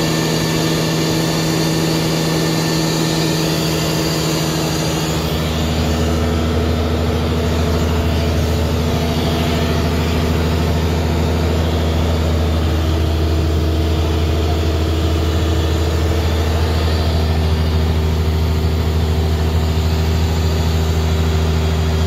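Fishing boat's engine running steadily with a deep, even hum that grows heavier about five seconds in.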